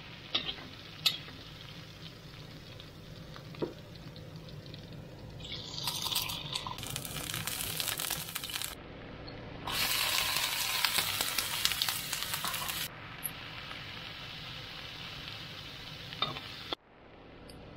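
Food frying in a hot wok: shallot, garlic, chilli and an egg sizzling in oil, with a metal spatula clicking against the pan a few times early on. The sizzle twice grows much louder and brighter for about three seconds.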